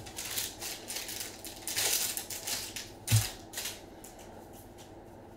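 Foil trading-card pack wrapper crinkling and tearing as gloved hands open it, in irregular bursts over the first few seconds, with a soft low thump about three seconds in.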